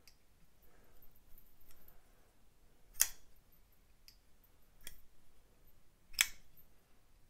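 Mosquito Tactical Calf folding knife, just reassembled on its pivot washers, being worked open and shut: sharp metallic clicks of the blade snapping open and closed. The two loudest clicks come about three and six seconds in, with a few fainter ticks between.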